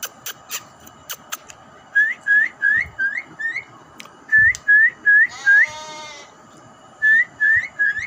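Javan myna (jalak kabo) calling in its cage: a few sharp clicks, then runs of short rising whistles, about three a second in groups of four or five. A nasal, bleat-like call comes about six seconds in.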